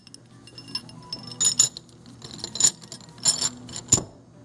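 Steel bearing parts clinking and ringing as the races and ball cage of a new main thrust ball bearing for an Orenda 14 turbojet are handled and set together. The clinks come in several small clusters, with one sharp clink near the end.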